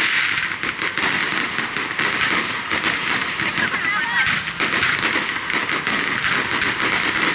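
Fireworks going off at close range: a dense, continuous crackling and popping from crackling stars and spark fountains, with a few brief squealing or whistling sounds near the middle.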